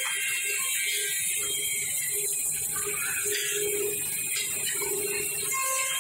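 Woodmaster WM-D200CNC double-head CNC tenoning machine running while it cuts tenons: a steady hiss and low hum with a mid-pitched tone that comes and goes.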